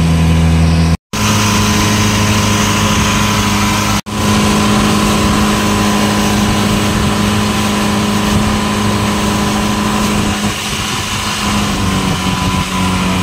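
Longtail boat engine running steadily under way, with a hiss of wind and water over it. The sound cuts out completely twice for a split second, about one and four seconds in, then runs on, a little quieter over the last few seconds.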